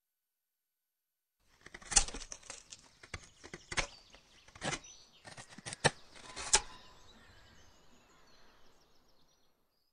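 Sound effects of an animated logo ident: a run of about half a dozen sharp cracks and snaps, with a thin high twittering that trails off after the last crack.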